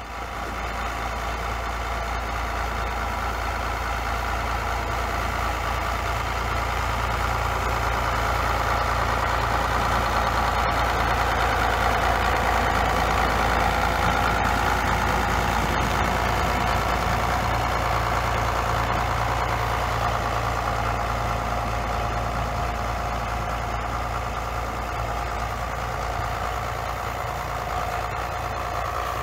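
John Deere 4030 tractor's six-cylinder diesel engine idling steadily in sub-zero cold, on a block heater that it needs to start.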